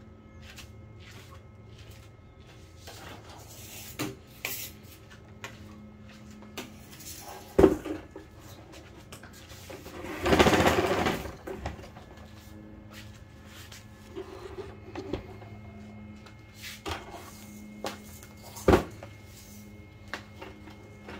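Handling noise: scattered knocks and clunks, two of them sharp and loud, and one noisy rustle lasting over a second about halfway through, over a faint steady hum.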